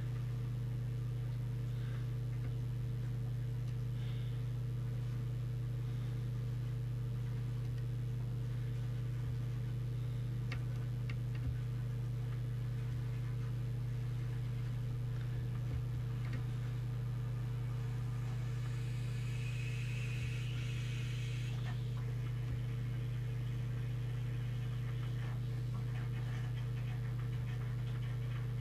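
Steady low electrical hum with evenly spaced overtones, unchanging throughout, with a few faint small ticks over it.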